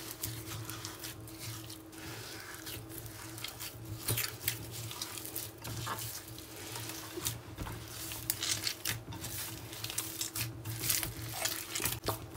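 Hand kneading date paste with sesame seeds and butter in a ceramic bowl: soft, irregular squishing and crackling, with a faint steady hum underneath.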